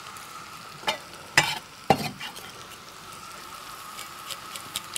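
Diced onion sizzling in melted butter in a frying pan, with three short sharp knocks about one to two seconds in.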